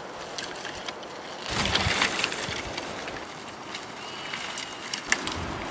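Footsteps and crackling rustle of dry grass and brush as people walk down a trail carrying bundles of firewood sticks, with a louder scraping rustle for about a second a second and a half in and a sharp snap near the end.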